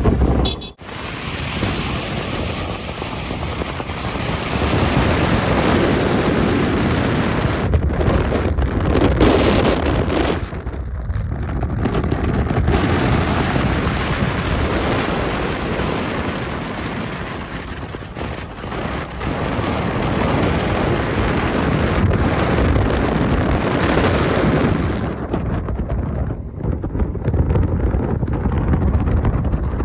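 Wind rushing over the microphone together with the road and engine noise of a moving vehicle, with a brief dropout about a second in and a duller sound near the end.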